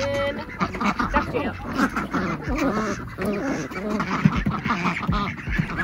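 Several ducks quacking over and over, their calls overlapping.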